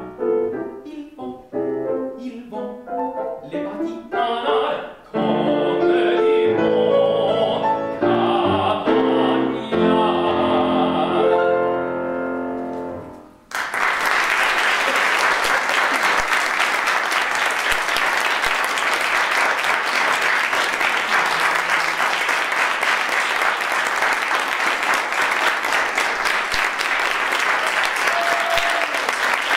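Classical art song sung by a solo voice with piano accompaniment, closing on a final note and chord; about 14 seconds in, the audience breaks into steady applause.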